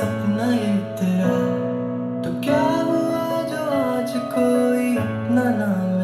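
A slow song with singing and acoustic guitar over held low notes, played through a Harman Kardon Omni 10+ wireless speaker.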